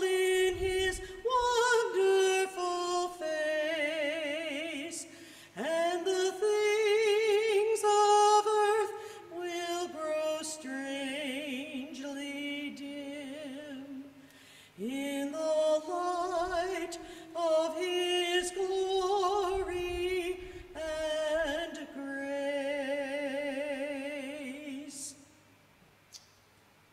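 A solo voice singing a slow, unaccompanied sung benediction in long held phrases with vibrato; the singing stops about a second before the end.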